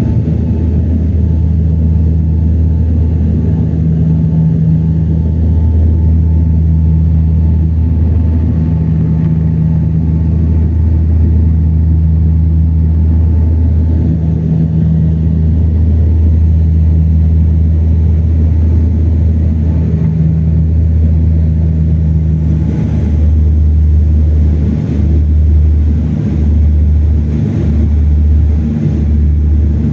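A propeller airliner's engines running loud and steady, heard from inside the cabin during takeoff. It is a low, even hum. From about two-thirds of the way through, the hum pulses with short regular dips about once a second.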